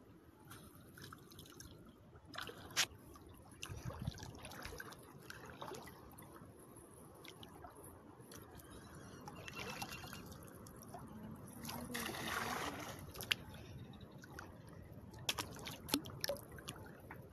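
Shallow estuary water sloshing and trickling as a cast net is thrown and hauled back in by a person wading. There are two short rushing splashes midway and a few sharp clicks.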